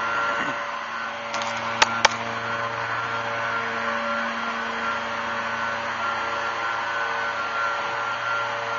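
Steady machine-like hum and drone with a few fixed tones, and two sharp clicks close together about two seconds in.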